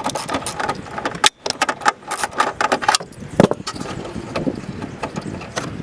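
Rattling clicks and scrapes of a hand working a fastener loose behind a car's front bumper, with a louder knock about three and a half seconds in.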